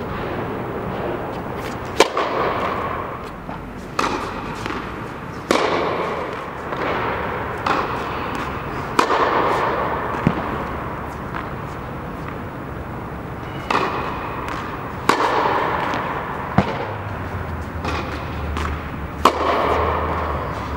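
Tennis balls struck by a racket, about ten sharp pops every one and a half to two seconds, each followed by a long echo under an indoor tennis dome.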